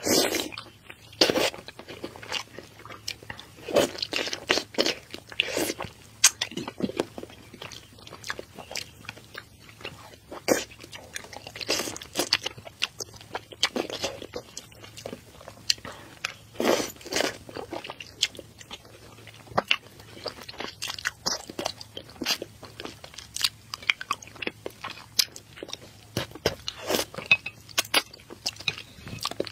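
Close-miked eating: biting into and chewing soft pieces of beef bone marrow in sauce, with wet mouth sounds coming in short, irregular bursts.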